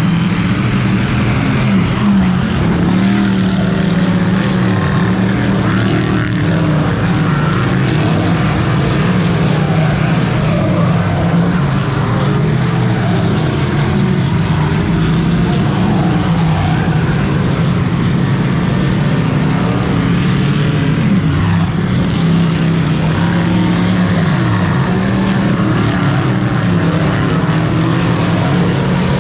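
Several dirt-track race car engines running laps on the oval, a continuous loud drone whose pitch rises and falls as the cars accelerate down the straights and lift for the turns.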